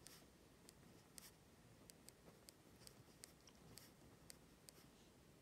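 Faint scratching of a pen writing on lined paper, a string of short, irregular ticks as the strokes are made.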